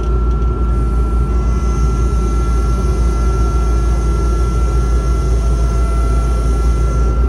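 Kubota skid steer's diesel engine running steadily, heard from inside the cab, with a thin steady whine running through it as the loader arms lower.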